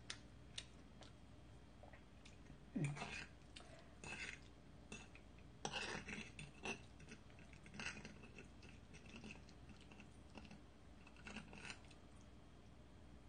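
Faint clicks and scrapes of a metal fork against a glass bowl as pasta is twirled, with soft chewing in between.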